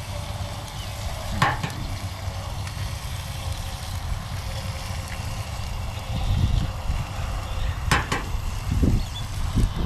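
Sausage and eggs frying in oil in a pan, a steady sizzle, with two sharp utensil clicks, one about a second and a half in and one near the end.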